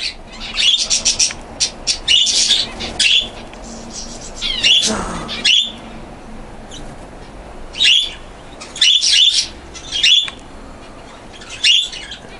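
Small caged birds (canaries, zebra finches and budgies) chirping in quick clusters of short high calls, with one longer call sliding down in pitch about five seconds in.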